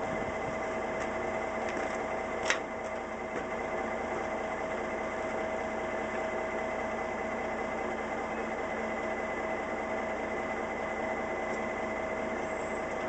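Diesel engine of a Western Star dump truck idling with a steady hum and a constant whine, and a single sharp click about two and a half seconds in.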